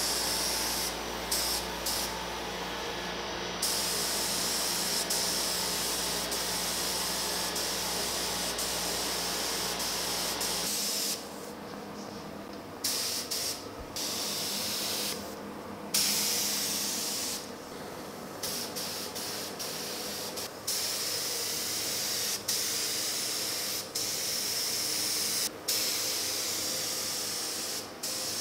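Gravity-feed paint spray gun hissing as black base coat is sprayed onto small parts, in long passes broken again and again by short gaps where the trigger is let off.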